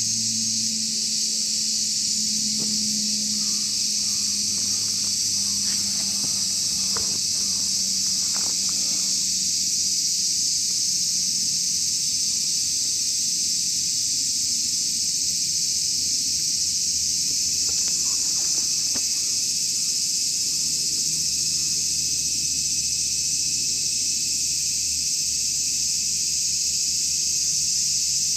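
Chorus of cicadas: a steady, shrill high-pitched drone that does not let up.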